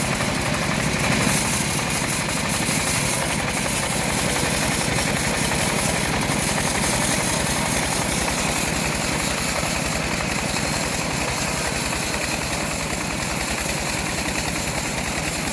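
Engine-driven homemade bandsaw mill running steadily, a fast even engine beat with a high hiss over it.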